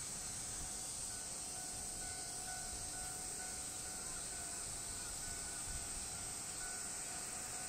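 Steady, faint outdoor background noise with a low rumble and a faint thin, high tone that comes and goes.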